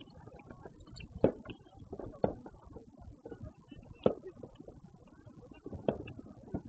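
Fireworks going off: about four sharp bangs, one every second or two, over a steady low rumbling background.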